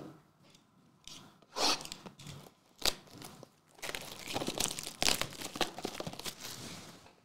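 Plastic shrink-wrap being torn open and peeled off a trading-card booster box: a sharp rip about a second and a half in, a snap near three seconds, then a few seconds of continuous crinkling as the wrap is pulled away.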